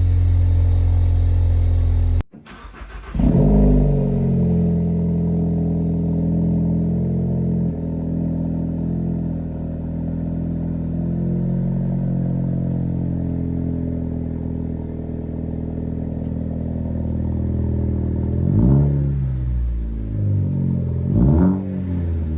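Ford Focus ST's 2.0-litre turbocharged four-cylinder idling through its exhaust, cut off abruptly for a moment about two seconds in, then given two quick throttle blips near the end, the revs rising and falling each time.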